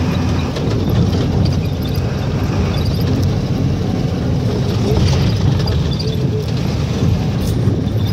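Vehicle road noise: a loud, steady low rumble.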